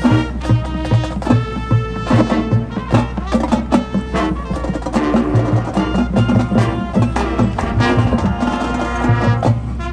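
Marching band playing: brass holding chords over drumline strikes.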